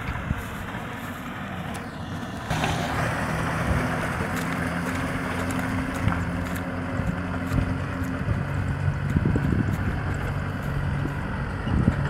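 Kubota M6040SU tractor's four-cylinder diesel engine running steadily as it pulls a trailer, getting louder about two and a half seconds in. Low rumbles come in near the end.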